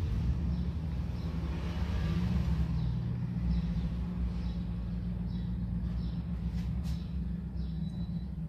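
A steady low motor rumble, like a vehicle engine running, with faint short high chirps and a couple of light clicks about two-thirds of the way through.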